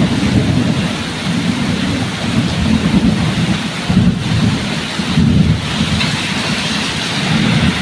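Steady heavy rain with low, rolling thunder rumbling and swelling throughout.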